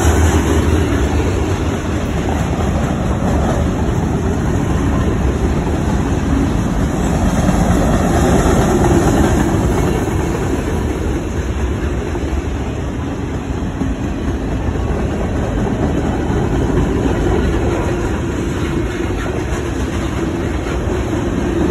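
Cars of a Norfolk Southern mixed freight train rolling past at close range: a steady noise of steel wheels on the rails as hoppers, boxcars and tank cars go by.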